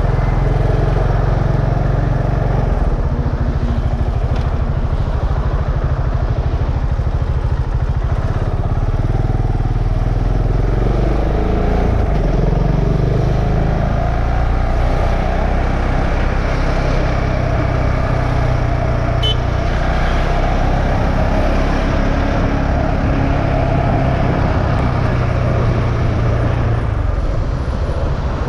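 KTM Duke 690's single-cylinder engine running steadily while riding, its note dipping and rising again about twelve seconds in.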